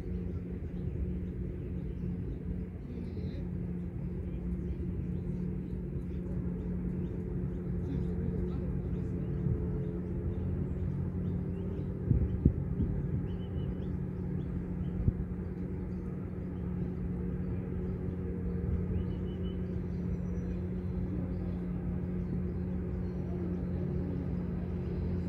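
Steady low outdoor rumble with a constant low hum, broken by a few sharp knocks a little past halfway.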